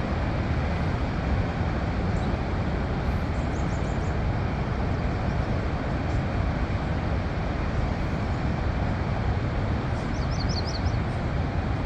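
Steady roar of Niagara Falls, a deep, even rush of falling water with no break. A small bird chirps a quick run of four or five high notes twice, a few seconds in and near the end.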